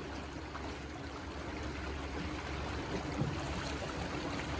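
Small fishing boat under way across a lake: water rushing and trickling along the hull over a low, steady motor hum.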